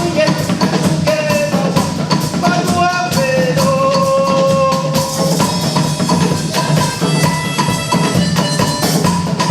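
Music with a busy drum beat and a melody line on top, with one long held note near the middle.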